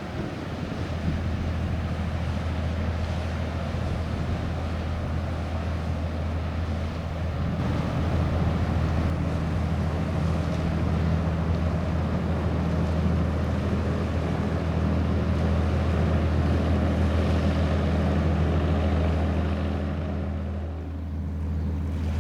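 Steady low drone of a passing ship's engine, a deep hum with several steady tones above it, growing louder about eight seconds in and easing off near the end.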